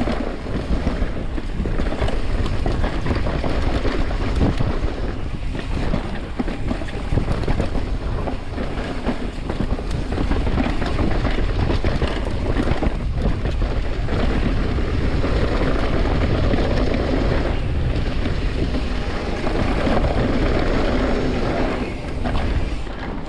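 Wind buffeting the microphone and mountain bike tyres rolling fast over a dirt trail, with frequent clatters and rattles from the full-suspension bike over rough ground; the noise eases a little near the end.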